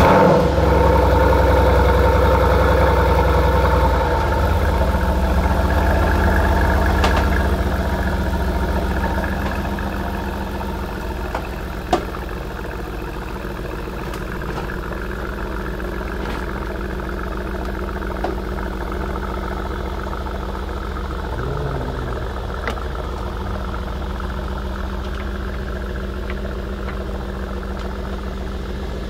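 Brabus-tuned Mercedes engine just started and idling: louder at first, then settling to a lower, steady idle after about nine seconds. A single sharp click comes about twelve seconds in.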